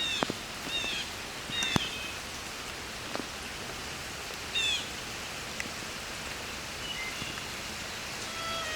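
Steady rain falling, with single drops tapping sharply here and there. A bird gives a few short, falling chirps.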